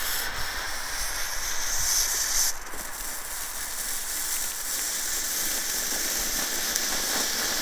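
Small category 1 firework fountain spraying sparks with a steady hiss; a sharper part of the hiss drops away about two and a half seconds in.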